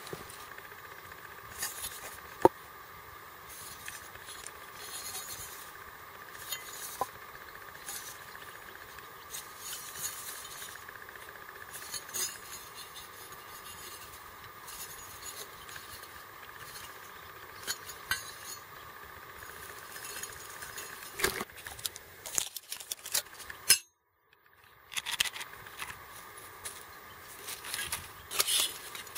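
Light metallic clinks and handling rattles of a folding sheet-metal pocket stove being unfolded and set up, with one sharp click about two and a half seconds in. The sound drops out completely for about a second near the end.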